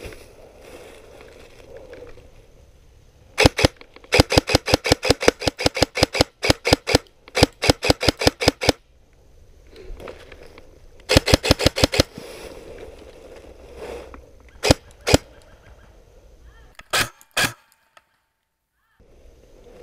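Airsoft electric M4-style rifle (G&G Predator AEG) firing: a single shot, then rapid strings of sharp shots at about six a second, then a few scattered single shots near the end. Faint rustling in dry leaves between the bursts.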